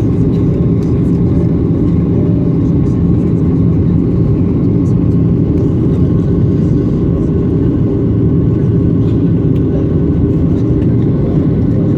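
Steady, loud low engine rumble with a constant hum, unchanging throughout.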